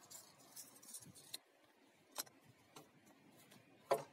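Faint handling sounds of timber and hand tools: a light rustle, a few soft clicks, then one sharp knock near the end as a wooden beam is set down against the mitre saw's table.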